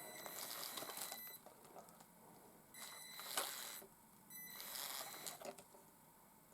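Traxxas TRX-4M RC crawler's small electric motor and geartrain whirring in three short bursts of about a second each as the throttle is worked forward and back, each burst with a high electronic whine over it.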